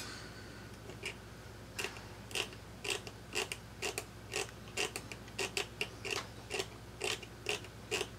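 A fine hand scraping tool lightly scraping an iPhone 6 Plus logic board, taking off delaminated board material a little at a time. It makes short, evenly spaced scratches, about two a second, starting about two seconds in.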